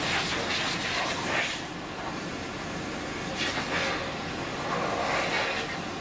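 Trigger spray gun on a hose hissing in several short bursts as it is played over an unfired clay toilet pan, over a steady background rush.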